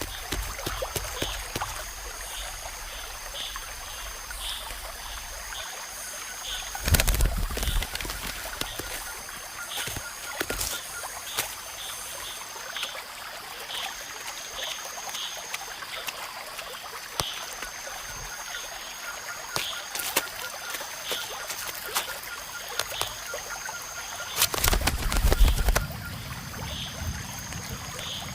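Rainforest ambience of insects: a high, thin whine in stretches of about two seconds, a chirp repeated about twice a second and a faint fast trill, with scattered clicks and drips. Two louder bursts of low rustling come about 7 seconds and 25 seconds in.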